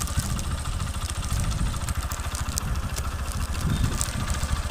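Motorcycle engine running with a steady, rapid low throb, heard close up from the pillion seat.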